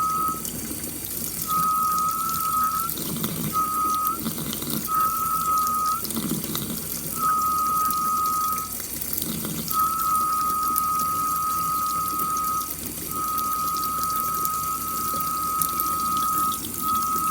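Tap water running through a mesh tea strainer, which sings a steady high whistle-like tone over the splashing. The tone cuts in and out repeatedly, for half a second to a few seconds at a time, as the flow shifts.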